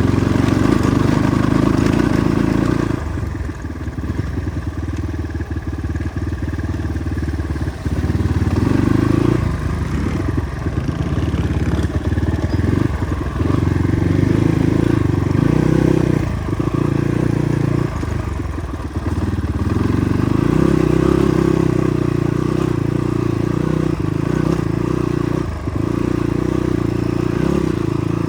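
Motorcycle engine running under a constantly changing throttle on a rough dirt track, easing off for several seconds a few seconds in and then repeatedly surging and dropping back, with the clatter of the bike over the bumps.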